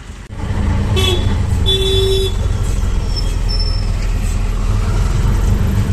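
A Bajaj RE auto-rickshaw's engine running steadily while under way, heard from inside the open cab. A horn toots twice, briefly about a second in and a little longer around two seconds in.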